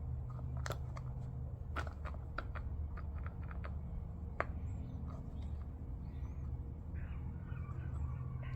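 Scattered light clicks and taps from handling the CV axle boot and its clamps, over a steady low hum.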